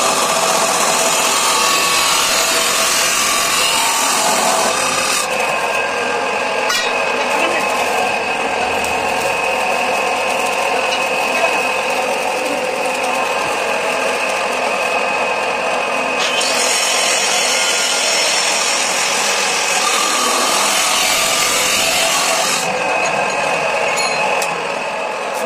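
A power tool working metal: a steady, harsh grinding noise with a motor whine, starting abruptly. Its high hiss drops away for a long stretch in the middle and again near the end.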